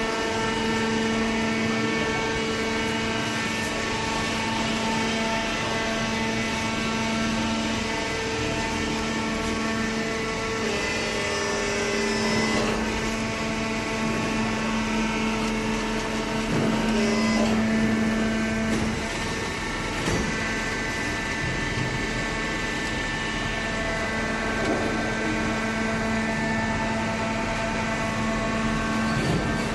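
Cardboard baler machine running, a steady motor hum that shifts in tone briefly near the middle.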